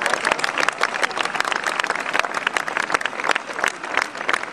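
Crowd applauding, a dense patter of many hands clapping that gradually dies down.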